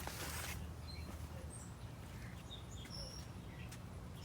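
Small birds chirping in short, scattered calls, over a steady low background rumble. There is a brief rustling noise right at the start.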